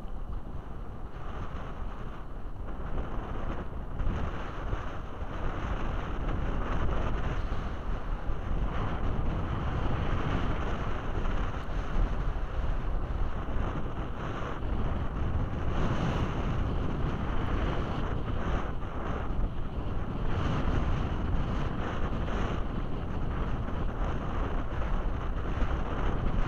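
Strong wind buffeting the microphone, a steady rumbling rush, over choppy water lapping around a wading angler.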